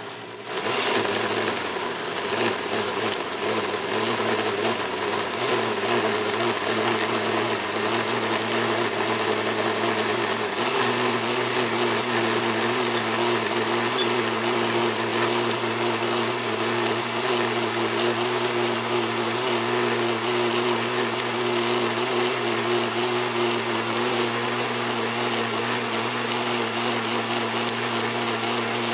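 Countertop blender switched on about half a second in and running steadily, blending a thick soursop smoothie; its pitch shifts and settles about ten seconds in. Stray soursop seeds knock around inside the jar.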